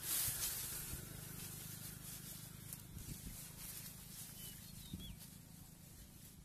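Dry straw and leafy branches rustling as they are pulled aside by hand, loudest in the first half second.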